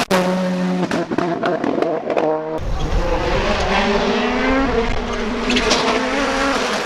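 Rally car engine at high revs, the pitch stepping with quick gear changes and broken by a few sharp pops in the first couple of seconds. Then a louder, fuller run at full throttle, the pitch rising and falling as the car drives through the stage.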